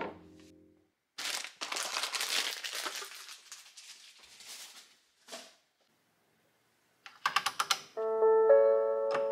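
Crinkling, rustling handling noise for a couple of seconds, fading out. After a pause comes a quick run of sharp clicks. Gentle background music with held notes begins near the end.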